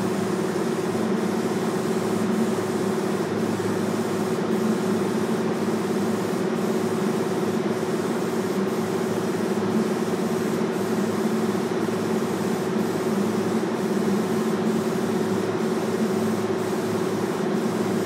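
A steady mechanical hum with a constant hiss, unchanging throughout.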